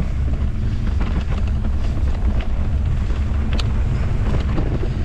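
Wind buffeting the microphone as a steady low rumble, with a few small sharp clicks, the clearest about halfway through.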